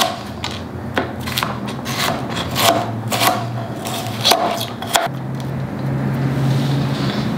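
Chef's knife chopping celery on a cutting board: irregular sharp knife strikes against the board, over a low steady hum.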